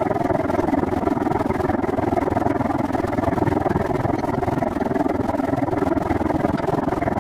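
Steady rushing and rumbling noise of a moving bicycle ride, picked up by a camera carried on the bike, with no distinct events.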